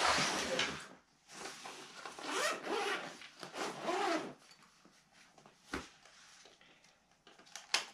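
Zipper on a fabric first-aid backpack being pulled open in several long strokes, then the bag's fabric rubbing and rustling as it is rummaged through. A short knock comes just before six seconds in, with a few light clicks near the end.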